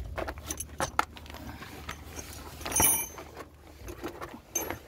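Small metal objects clinking and jingling amid scuffing and handling noise, with one louder ringing clink about three seconds in.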